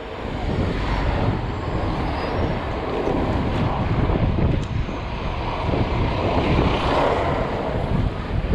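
Wind buffeting the microphone: a steady noisy rush with low rumble that swells a couple of times.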